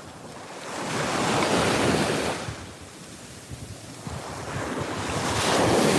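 Atlantic Ocean surf breaking on a beach: two waves swell and wash in, the first peaking about a second and a half in, the second near the end.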